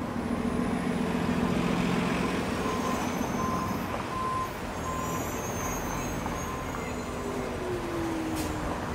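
Škoda 14TrSF electric trolleybuses passing in street traffic: the hum and whine of their motors over tyre and traffic noise, with a whine falling in pitch near the end. A short beep repeats about twice a second in the background.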